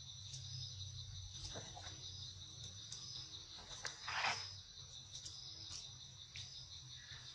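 Steady high-pitched chorus of insects, with a few faint clicks and a brief falling call about four seconds in.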